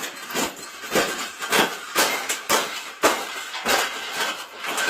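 A cage being folded and crushed by hand, giving a string of crunching, clattering knocks about two a second.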